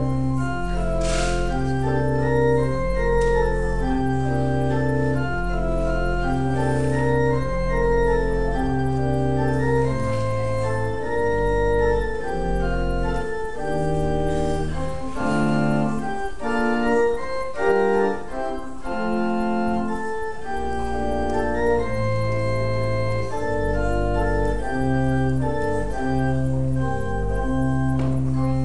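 Church pipe organ playing a slow piece of sustained chords over a moving pedal bass line. The bass drops out for a few seconds midway, then returns.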